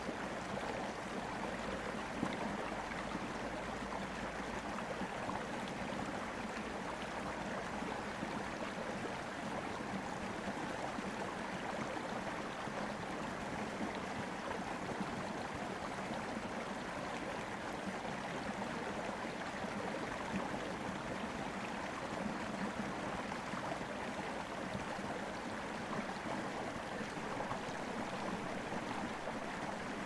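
Flowing stream: an even, unbroken rush of running water.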